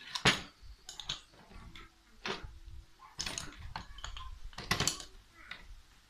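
Irregular clicks and knocks of a partly dismantled Aisan carburetor's metal body being handled and turned over, about a dozen uneven taps spread across the few seconds.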